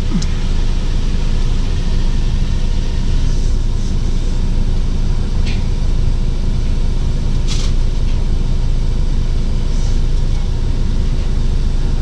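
Car engine idling steadily, heard from inside the car, with two short sharp ticks near the middle.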